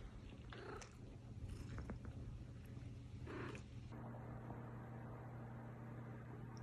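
Domestic cat purring softly: a quiet, steady low rumble.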